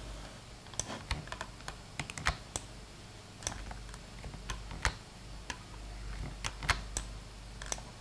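Irregular clicking of computer keys, a couple of sharp clicks a second, over a faint steady low hum.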